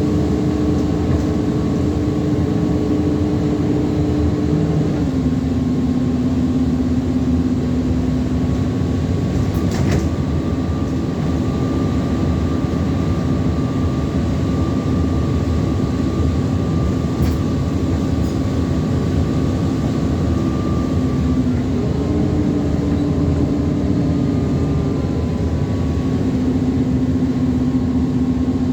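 Alexander Dennis Enviro400 double-decker bus on a Dennis Trident chassis heard on board while under way, its drivetrain droning steadily. The drone drops in pitch about five seconds in and rises again near the end, with a fainter high whine in the middle.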